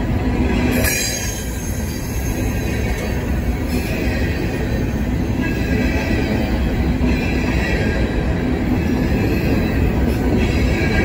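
Empty covered hopper cars of a freight grain train rolling past close by, a steady rumble of wheels on rail, with wheel squeal coming and going every few seconds.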